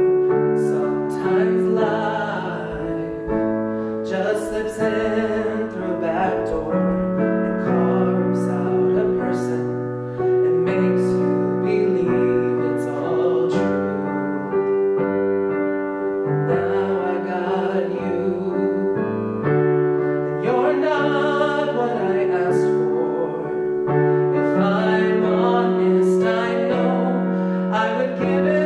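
A male tenor voice singing with piano accompaniment, holding notes with vibrato over sustained piano chords.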